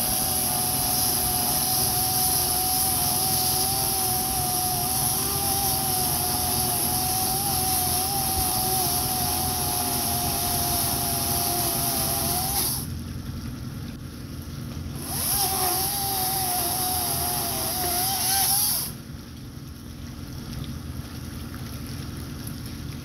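Gas chainsaw running at full throttle, cutting into a fallen pine tree, with a steady wavering whine. It drops back to idle about halfway through, revs up again, and drops back once more near the end.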